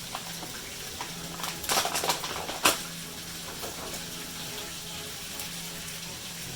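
Cookware being handled: a few short clatters and scrapes about one and a half seconds in, then one sharp clack, over a faint steady hum.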